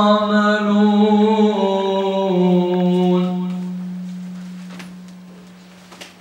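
A young man's voice reciting the Quran in melodic tajweed, drawing out the closing word "ya'malūn" on one long held note that slowly fades away over the second half.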